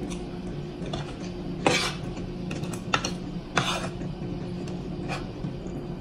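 Metal spoon and fork scraping and clinking against a wooden plate while eating, with three louder scrapes in the middle and a softer one near the end, over a steady low hum.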